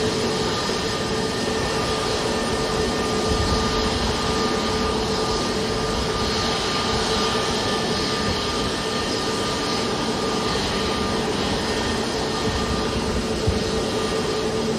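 Jet engines of Airbus A320 airliners: a steady rush with a constant whine over it.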